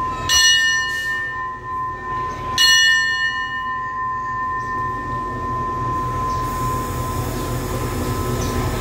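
Railway station bell struck twice, about two seconds apart, each stroke ringing on and slowly fading. Near the end a low rumble from the standing train grows louder.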